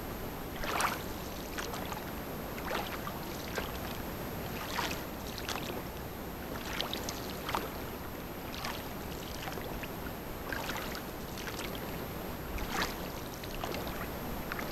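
Oars dipping and splashing as a small rowboat is rowed through calm water, with short splashes every second or two.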